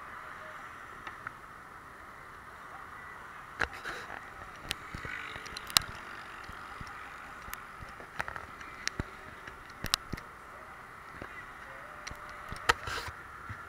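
Steady noise of traffic on a multi-lane expressway, with scattered sharp clicks and knocks from fingers handling the camera.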